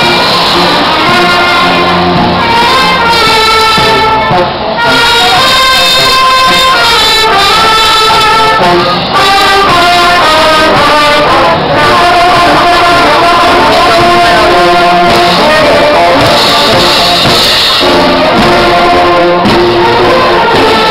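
Marching brass band playing a tune on trumpets and other brass, loud, with two brief breaks between phrases.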